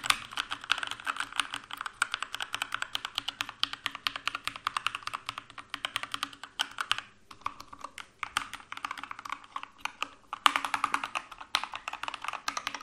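Keychron K2 mechanical keyboard being typed on at a normal pace: a fast, uneven stream of key clicks, with brief pauses about seven and ten seconds in.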